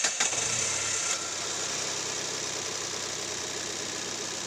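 Datsun car engine just fired up on a freshly installed battery: it runs louder for about a second, then settles to a steady idle.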